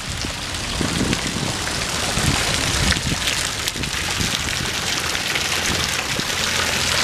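Tiered ornamental fountain: thin jets of water falling from its upper bowl and splashing steadily into the basin pool below.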